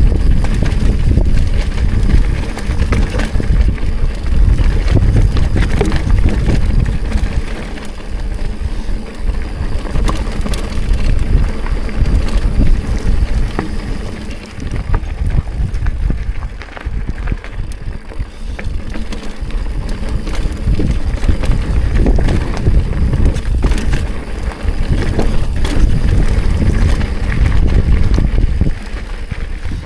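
Mountain bike riding fast over rocky dirt singletrack: heavy wind buffeting on the microphone, with tyres rolling over rock and many small rattles and knocks from the bike over bumps.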